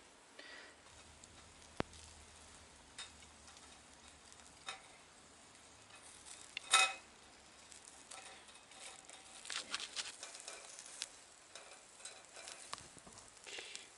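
Food sizzling quietly on a charcoal grill, with scattered small crackles and clicks. A sharp knock with a brief metallic ring stands out about seven seconds in.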